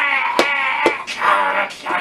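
A puppeteer's exaggerated character voice wailing and groaning without words as one devil puppet grapples with the other, with two short knocks in the first second.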